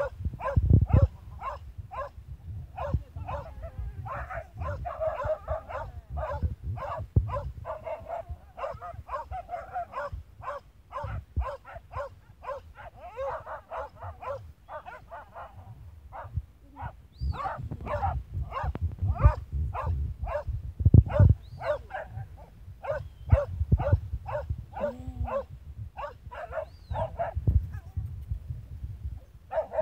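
Hunting dogs barking in a quick, steady string of short barks, about two or three a second, while digging at an armadillo burrow: they are baying at the burrow.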